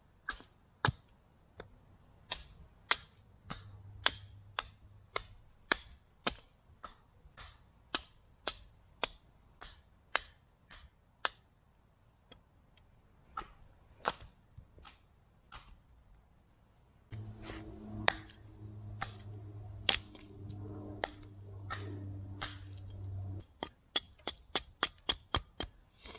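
Repeated sharp chopping strikes of a blade into a section of semi-green birch log, roughly one every second, quickening to a rapid flurry near the end, as the bark is taken off and one side flattened. A steady low droning hum runs for about six seconds in the middle.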